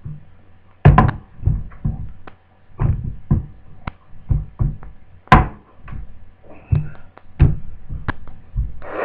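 Irregular hard knocks, taps and clacks of a plastic laptop casing being handled and set about on a bench, about a dozen, the loudest about five seconds in.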